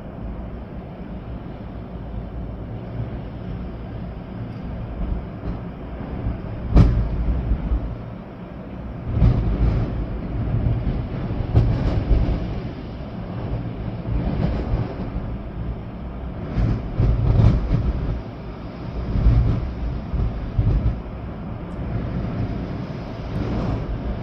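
Storm wind gusting, with rain, and trees swaying; the gusts swell and fade every few seconds as a low rumble on the microphone. There is a sudden thump about seven seconds in.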